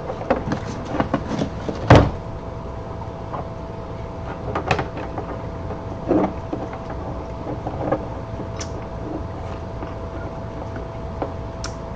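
Scattered knocks and clicks of the parts of a digital postal scale being handled and fitted together. The loudest is a sharp knock about two seconds in.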